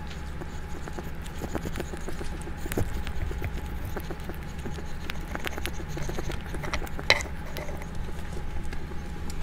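A pet rat chewing and gnawing food held in its paws, a quick irregular run of small crunchy clicks over a steady low hum. One sharper click comes about seven seconds in.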